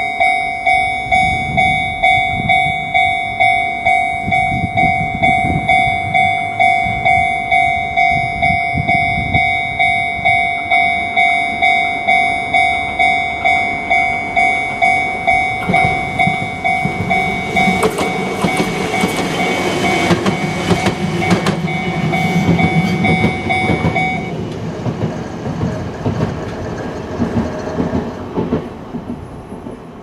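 Japanese level-crossing alarm ringing, a two-tone electronic bell repeating about one and a half times a second, while a Chikuho Electric Railway train passes over the crossing. The train's noise swells a little past halfway with clicks from the wheels on the rails. The bell stops about four-fifths of the way through, and the train fades away.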